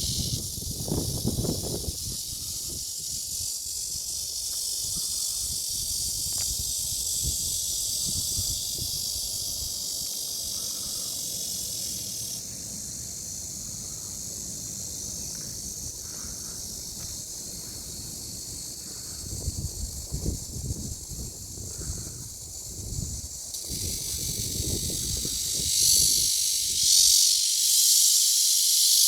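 Cicadas calling in a loud chorus, a dense, continuous high buzzing hiss. The tone of the chorus shifts about twelve seconds in, and it swells louder with a pulsing surge a few seconds before the end.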